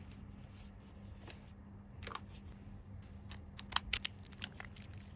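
Small sharp clicks and taps of toy pieces and packaging being handled, with a soft swish about two seconds in and a quick run of clicks in the second half, over a faint steady hum.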